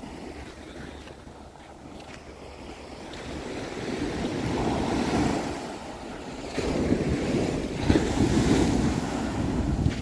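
Ocean surf breaking and washing up a sandy beach, swelling into louder rushes in the second half, with wind rumbling on the microphone.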